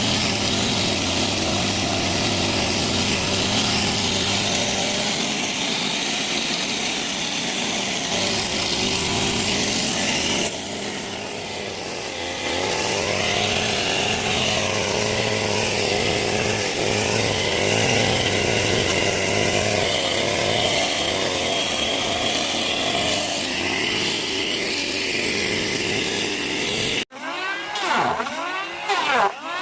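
Chainsaw running at high speed under load, cutting along the face of a wooden board to plane it flat, with a short easing-off about a third of the way in. Near the end it cuts off abruptly, replaced by a different sound that rises and falls in pitch over and over.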